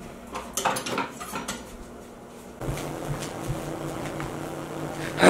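Metal cutlery clinking and rattling as a kitchen knife is fetched, a few sharp clicks over the first couple of seconds. Then a steady low electric hum begins about halfway through, and a brief loud noisy burst comes at the very end.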